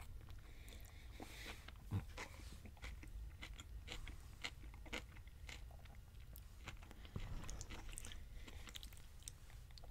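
Close-up chewing of a forkful of lettuce and beef, with many short crunches and clicks.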